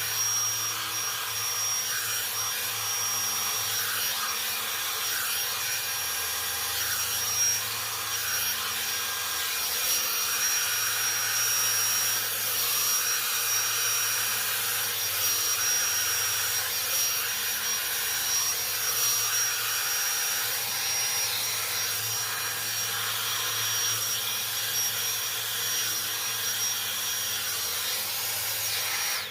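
Revlon One Step hot-air brush (hair dryer and volumizer) running steadily while drying a section of hair: an even rush of blown air from its motor with a constant thin high whine.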